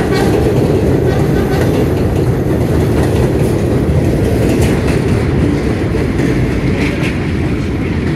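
Redbird subway train running through an elevated station without stopping: a loud, steady rumble of wheels on rail that eases slightly near the end.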